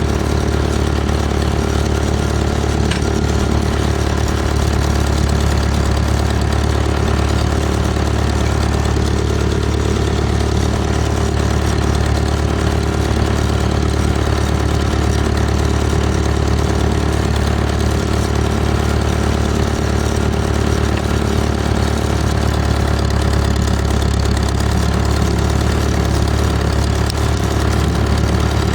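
Old farm tractor engine idling steadily, with no change in speed.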